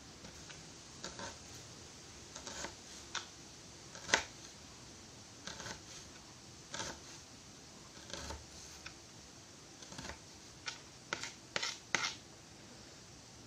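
Kitchen knife slicing shallots on a plastic cutting board: sharp, separate taps of the blade striking the board at an uneven pace, coming closer together near the end.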